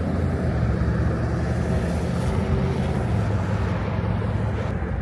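Car running, with a steady low rumble and no sudden changes.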